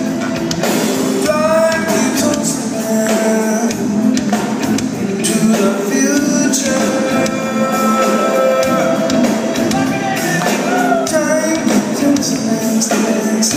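Rock band playing live at full volume, with electric guitars, keyboards, bass and drums.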